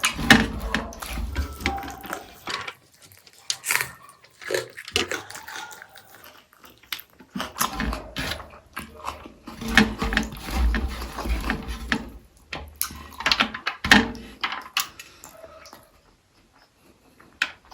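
Close-miked eating sounds: wet chewing and smacking of rice and egg curry, with irregular clicks and low thumps in two long bouts, quieter near the end.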